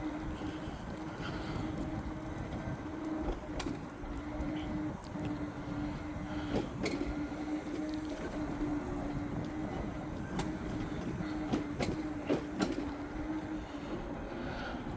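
A vehicle's motor running with a steady hum at one pitch over road rumble, with scattered sharp clicks and knocks.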